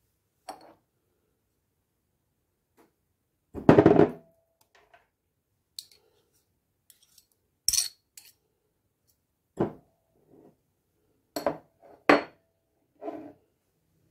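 A knife scraping paste out of small ceramic dishes into a glass bowl and tapping against dish and bowl: a string of separate clinks and scrapes, the loudest and longest about four seconds in.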